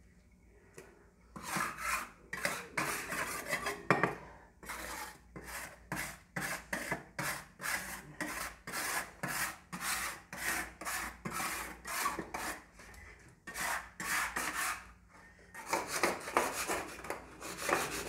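Hand scrub brush scrubbing a wet tiled floor in quick back-and-forth strokes, about two or three a second, starting about a second in, with a short pause near the end.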